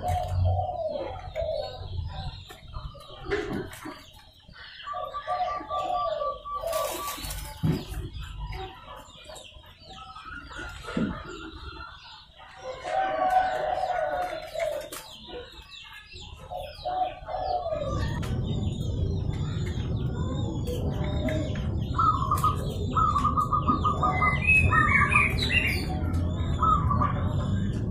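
Zebra doves (perkutut) cooing: runs of short, repeated pitched notes in their rolling call. A steady low rumble joins about two thirds of the way through.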